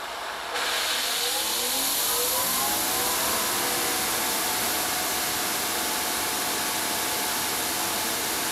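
Greenworks 2300 PSI electric pressure washer running with the trigger held, spraying through a 25-degree nozzle with a pressure gauge in line. The spray hiss jumps up about half a second in, and the motor's whine rises in pitch over the next couple of seconds as the pump ramps up to pressure, about 1750 PSI, then holds steady.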